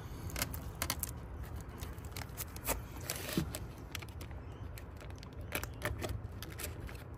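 A plastic bag crinkling as it is handled and pulled off the open end of a coolant hose, with scattered small clicks and scrapes and a brief rustle about three seconds in.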